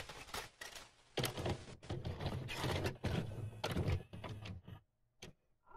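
Videocassette recorder sound effect: a run of mechanical clunks and clicks over a low motor hum, like a tape being loaded and set to play, with static hiss at the start. It dies away about five seconds in, leaving a couple of last clicks.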